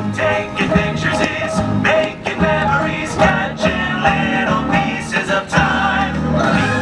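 Fireworks-show soundtrack: loud music with singing and a steady beat.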